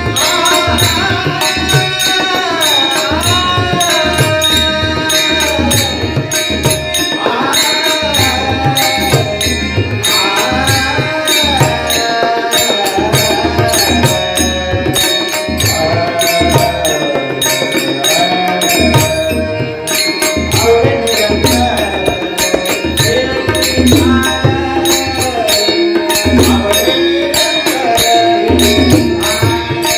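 A male voice sings a Warkari devotional melody (abhang chaal) in long, ornamented gliding phrases, accompanied by tabla playing a fast, steady rhythm.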